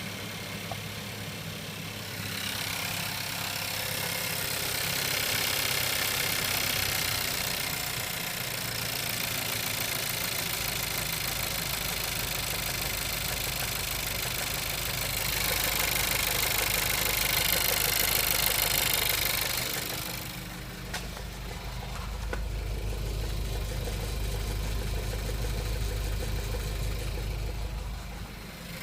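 Škoda Kodiaq engine running at idle with a knock coming from the engine.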